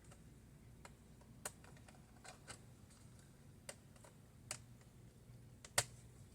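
A small screwdriver clicking and tapping against a screw in a laptop's base: a handful of sharp, scattered clicks, one louder near the end.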